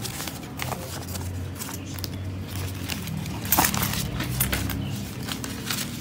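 Banknotes, paper slips and the clear plastic zip pouches of a cash-stuffing binder being handled: scattered rustles, crinkles and small taps, the sharpest a crackle about three and a half seconds in, over a steady low hum.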